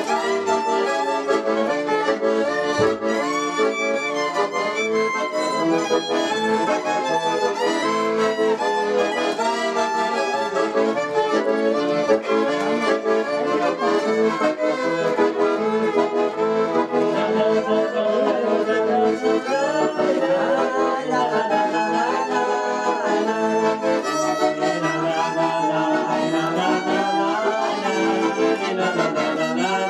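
A piano accordion and a violin playing a tune together without pause.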